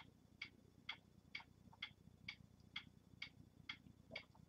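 Faint, steady ticking of a clock, a little over two ticks a second.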